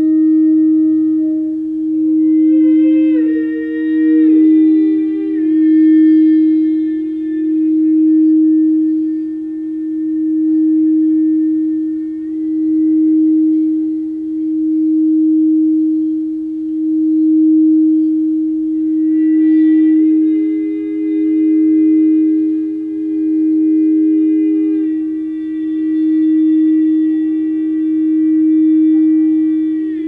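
Frosted crystal singing bowl rimmed with a mallet, holding one steady low ringing tone that swells and fades about every two seconds. A fainter higher tone slides down in steps a few seconds in, and another higher tone joins and holds from about two-thirds through.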